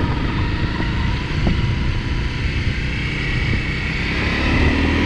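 Honda CRF250L's single-cylinder engine running steadily while riding, mixed with heavy wind rush over the microphone.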